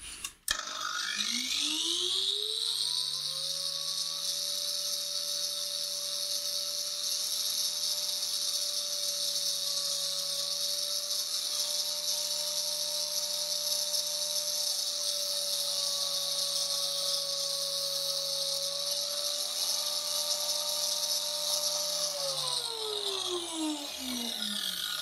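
Angle grinder with a sanding disc switched on and running up to speed over about three seconds, with a rising whine, then running freely with no load at a steady pitch. About 22 seconds in it is switched off and winds down with a falling whine.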